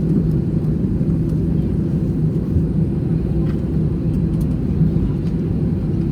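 Steady low rumble inside an Airbus A320's cabin from its engines and airframe, with a few faint ticks.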